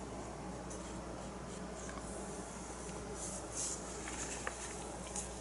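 Faint handling noises: light scratching and rustling with a few soft ticks, over a low steady hum.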